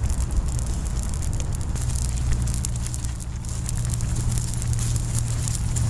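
Wood campfire crackling with irregular sharp pops and snaps under a cast iron pot of broth at a boil, over a steady low rumble.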